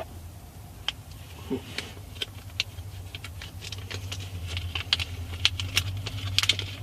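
Small gear-knob adapter pieces clicking and clinking as they are handled and tried on the gear stick, with scattered sharp clicks that grow busier after the first few seconds, over a low steady hum.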